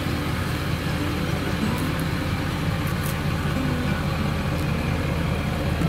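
Pickup truck engine running at low speed as the truck pulls slowly away towing a boat trailer: a steady, low engine note with fast even pulsing.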